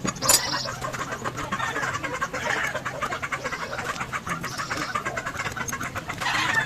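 Sped-up time-lapse sound of motorcycle engine reassembly: a rapid, irregular run of tool clicks and knocks on metal parts, with a bird calling now and then over a steady low hum.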